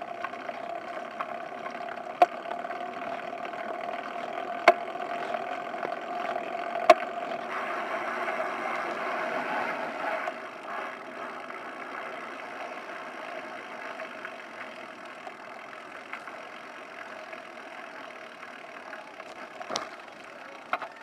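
Riding noise picked up by a camera mounted on a moving bicycle's handlebars: steady tyre-on-pavement rumble and wind, with sharp knocks from the bike and mount, four in the first seven seconds and two more near the end. The noise eases in the second half as the bike slows.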